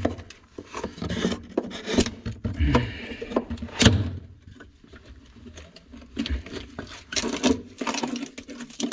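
Wooden pipe boxing being prised and torn apart by hand with a screwdriver-type tool: irregular cracks, knocks and scrapes of splintering board and timber, the sharpest cracks about two, four and seven seconds in.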